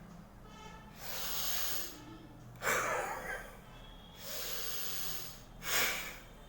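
A man breathing deeply in a lung-expanding breathing exercise: two long, slow inhalations, each followed by a short, louder exhalation.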